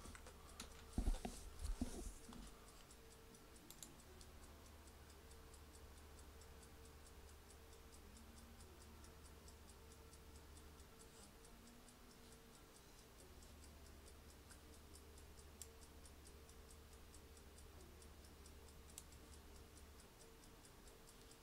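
Near silence: room tone with a low hum and faint, regular ticking, broken by a few sharp clicks about a second in.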